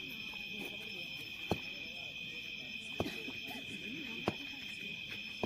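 A steady, high-pitched chorus of night insects such as crickets, with three sharp clicks and faint distant voices.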